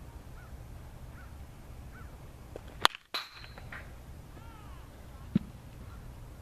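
Baseball bat striking a tossed ball once: a sharp crack with a brief high ringing ping. A lighter knock follows about two and a half seconds later.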